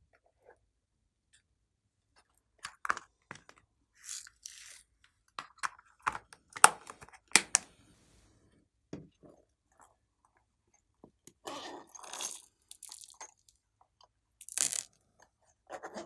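Small plastic containers and glitter tubes being handled and tapped, with glitter and sequins sprinkled onto slime in a tray: scattered sharp plastic clicks and short crackly rustles, separated by near silence.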